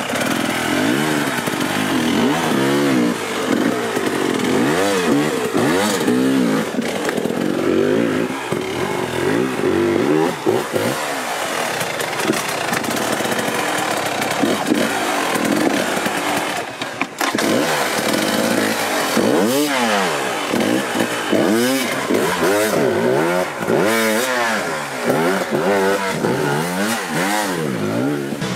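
Husqvarna enduro dirt bike engine revved in repeated short blips, its pitch rising and falling about one to two times a second as the bike is worked up over steep rock.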